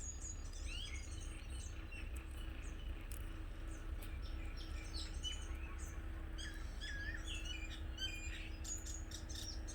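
Small birds chirping in the background, many short chirps and brief trills one after another, over a low steady hum.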